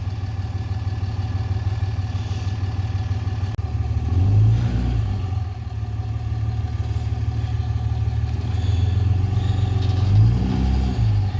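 Tow vehicle engine running steadily while backing up a trailer, its revs rising briefly twice, about four seconds in and near the end.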